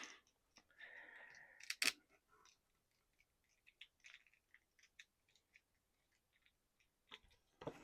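Plastic action figure being handled and posed: a brief soft rustle, one sharp click of a joint just before two seconds in, then faint scattered ticks.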